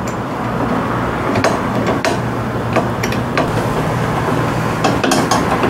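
Irregular metal clicks and clinks, about eight of them, as a G-clamp is unscrewed and worked off the rim of a scooter's front tyre, over a steady background hum.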